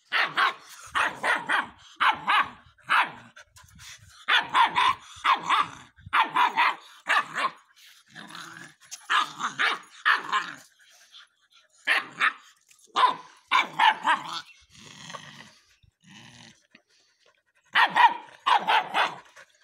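Rottweiler puppy barking in quick runs of three or four high, sharp barks, again and again, with short pauses between runs.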